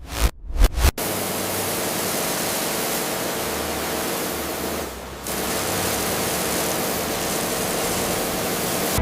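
A steady, even hiss of noise that dips briefly about halfway through, after about a second of low pulsing beats.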